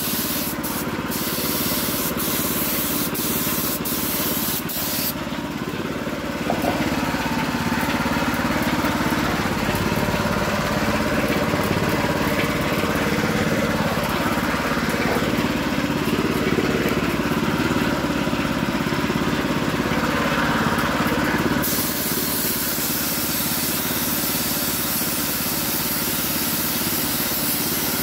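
Compressed-air paint spray gun hissing steadily as it sprays paint onto a motorcycle wheel rim.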